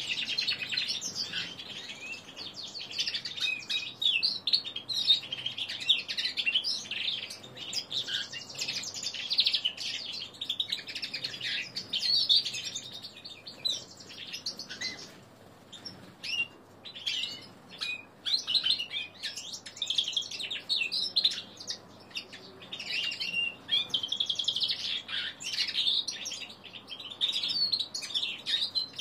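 Young male linnet × canary hybrid singing a rambling, unfinished practice song (subsong): a fast, nearly continuous twitter of quick rising and falling notes, with a couple of brief pauses.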